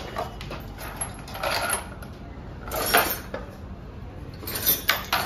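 Loose steel bolts, nuts and hand tools clinking and clattering as they are handled, in a few short bursts; the loudest comes about three seconds in, and a run of sharp clicks comes near the end.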